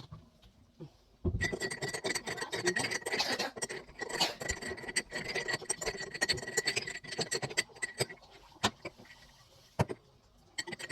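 A spoon stirring in a glass: a fast run of scraping clinks with a faint steady ring, starting just over a second in and lasting about seven seconds, then a few scattered taps.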